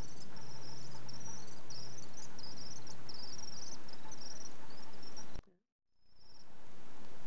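Young common swift's high-pitched chittering begging calls, a rapid run of short trills as it is hand-fed. The sound cuts off with a click a little after five seconds, then one more short call comes near the end.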